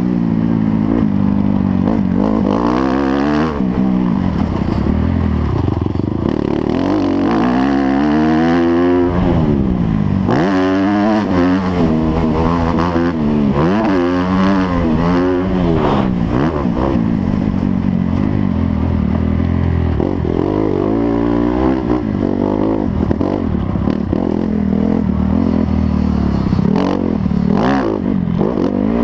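Motocross motorcycle engines revving hard, rising and falling in pitch again and again as the throttle is opened and shut.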